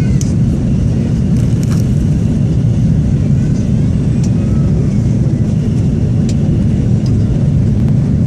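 Steady rumble of an Airbus A330-200's engines and airflow heard inside the cabin, with a few light clicks and rattles from the cabin fittings.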